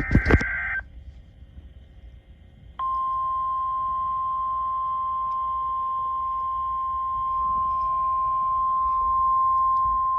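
The tail of an EAS/SAME header's data tones, cut off under a second in. About three seconds in, the alert's single steady warning tone of about 1050 Hz starts and holds, announcing a National Weather Service flash flood warning.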